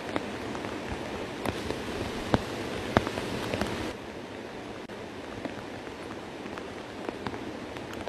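Rain and rushing floodwater: a steady hiss with scattered sharp drop-like ticks. About four seconds in it drops abruptly to a softer hiss.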